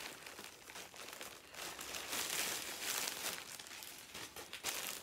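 Plastic packaging, a poly mailer bag and the clear plastic bag inside it, crinkling and rustling as it is handled and pulled open; loudest in the middle.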